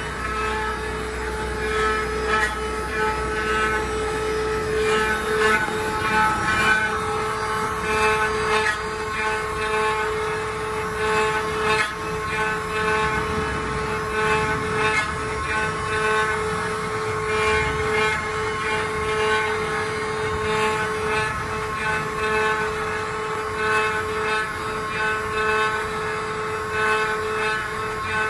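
Multi-spindle 4th-axis CNC router carving rotating wooden balusters: the spindle motors run with a steady whine while the router bits cut into the wood with an uneven rasping noise.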